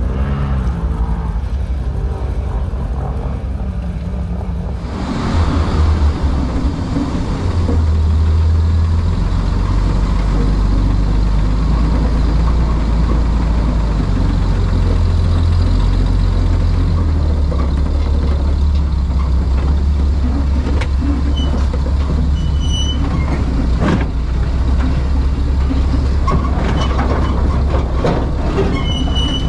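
Dodge M37 truck's engine running with a deep, steady rumble as it drives over rough dirt, after a short opening stretch of another vehicle's engine running.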